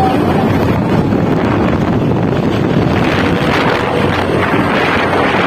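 Steady, heavy wind noise on the microphone of a moving motorcycle, with the bike's engine and road noise underneath.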